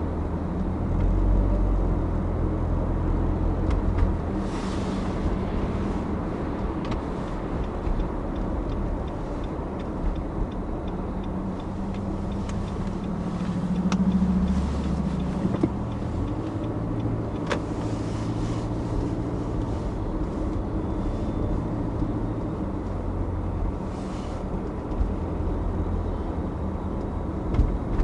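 A car driving on city streets: a steady low rumble of engine and tyre noise that swells briefly a couple of times, with a few faint clicks and rattles.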